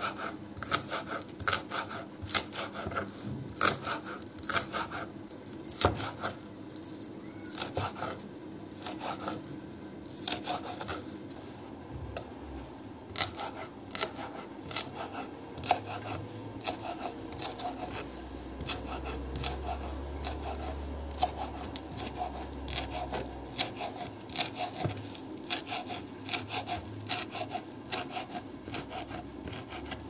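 Kitchen knife chopping fresh herbs, green onions and dill, on a plastic cutting board: a long run of crisp taps, which get quicker and more even from about halfway.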